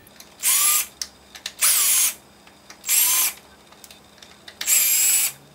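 Cordless power drill with a Phillips bit backing out four small screws from a plastic motor-controller cover: four short bursts of motor whine, the last a little longer.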